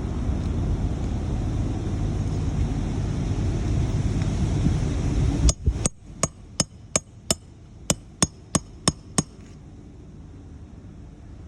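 Wind buffeting the microphone, then, after an abrupt cut, about a dozen sharp hammer blows in quick succession, roughly three a second, each with a brief high ring.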